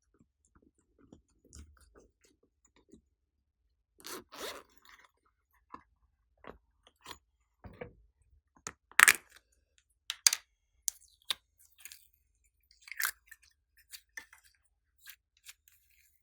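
Slime and its add-ins being handled and mixed by hand. Irregular sharp crackles and clicks, sparse at first and denser after about four seconds, with the loudest snaps about nine and ten seconds in.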